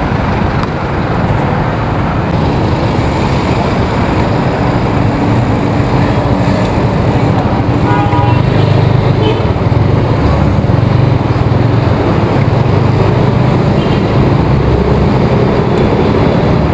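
Busy city road traffic heard from a bicycle: car and motor scooter engines running close by in slow stop-and-go traffic, a steady loud rumble that grows heavier about halfway through. A short pitched tone like a vehicle horn sounds once about eight seconds in.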